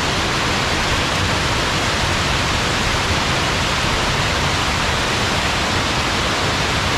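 Small waterfall pouring over rocks and splashing close to the microphone: a steady, loud rush of falling water.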